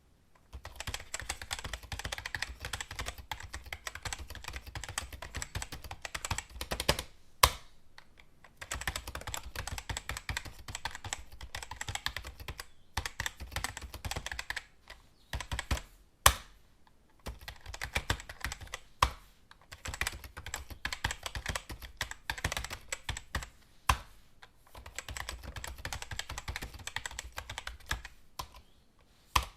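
Computer keyboard typing in fast runs of keystrokes, broken by short pauses every few seconds, with an occasional single louder key strike.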